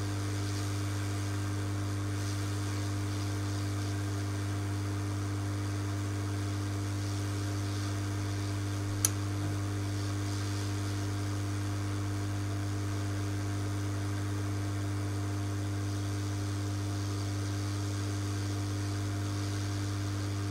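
Steady electrical mains hum, unchanging throughout, with one sharp click about nine seconds in.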